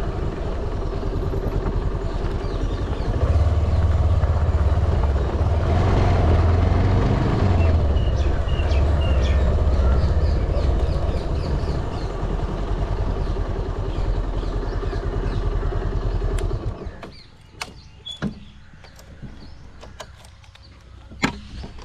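Motorcycle engine running steadily while riding, with a strong low-pitched drone. About 17 seconds in it stops abruptly, leaving a much quieter background with a few sharp clicks.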